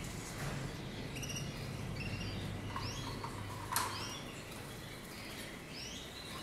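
Domestic canaries giving short, high chirping calls, scattered through, with a single sharp click about two-thirds of the way through.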